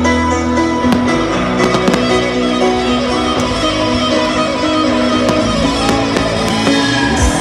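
Aerial firework shells bursting, several sharp bangs, over music playing at the same time.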